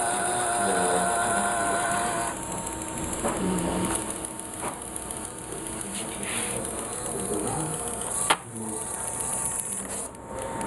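Small electric gear motors of a PLC-driven construction-kit robot arm whirring as the arm moves. A steady whine stops about two seconds in, and a sharp click comes about eight seconds in.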